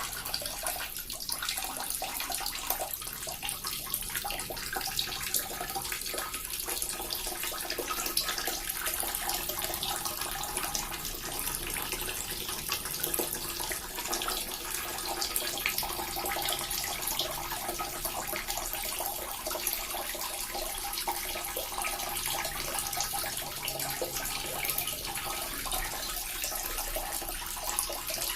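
Small water fountain running steadily, water splashing and trickling continuously.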